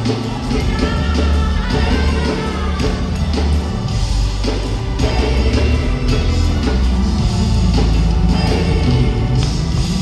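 Live gospel worship band playing loudly, with heavy bass and drums, and voices singing over it.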